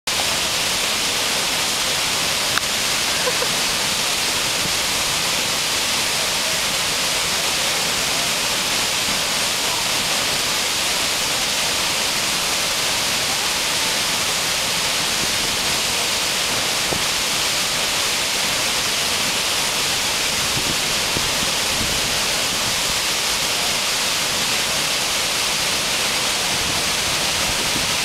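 Mooney Falls, a large waterfall, crashing into its plunge pool: a loud, steady rush of falling water and spray.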